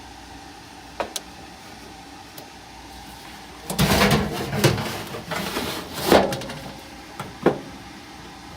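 Furnace blower assembly sliding into the sheet-metal furnace cabinet: a click about a second in, then a few seconds of metal scraping and rattling, ending in a sharp knock as it seats.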